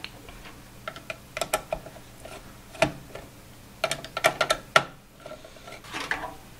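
Small screwdriver turning out the screws of a motherboard's M.2 SSD heat spreader: scattered light metallic clicks and scrapes, most of them bunched a little past the middle.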